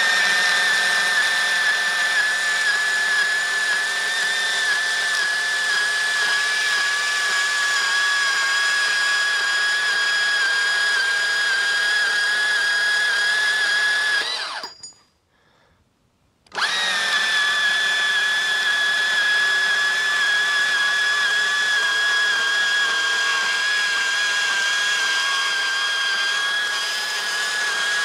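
Makita 18V cordless portable bandsaw running and cutting through steel bar, a steady high motor whine that sags slightly in pitch under load. It stops for about two seconds midway, then starts again and keeps cutting.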